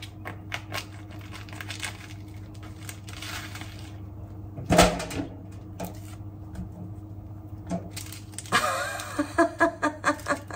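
Husk of a bamboo shoot being peeled off by hand: a run of small crackling, tearing clicks as the layers come away, with one louder knock about five seconds in and a busier patch of clicks near the end. A steady low hum runs underneath.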